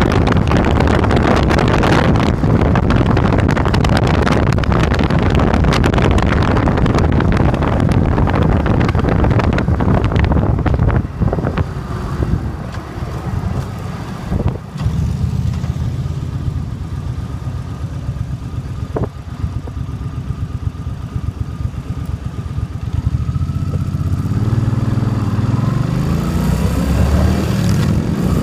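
Suzuki Boulevard C50's 805cc V-twin engine under way with wind rush on the microphone. About a third of the way in it drops to a quieter, lower run as the bike slows for a stop sign, then its pitch rises as it accelerates away near the end.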